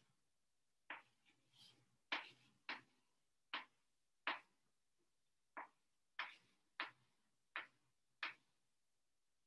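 Chalk striking and scratching on a chalkboard as a formula is written: about a dozen short, sharp taps at an uneven pace, some with a brief scrape after them.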